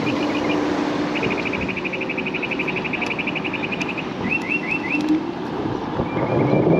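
A small bird's rapid, even trill of high notes, then a few quick rising chirps and a short trill near the end, heard over the steady wind and road noise of a moving scooter.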